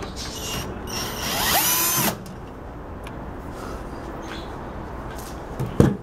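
Cordless drill-driver with a Phillips bit backing out a screw: the motor whines up in pitch and runs for about a second, then stops. A short knock near the end.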